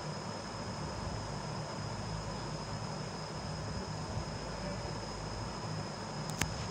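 Steady background hiss and low hum with a thin, steady high-pitched whine; a couple of faint clicks near the end.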